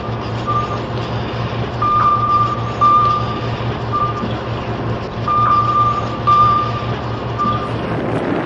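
Heavy vehicle's engine running steadily while an electronic warning alarm beeps on one pitch, in repeating groups of two longer beeps and one short one about every three and a half seconds.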